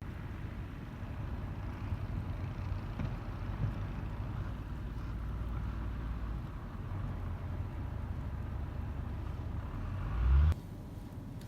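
A motor vehicle running, a steady low rumble with a hiss over it. It swells sharply about ten seconds in, then cuts off abruptly.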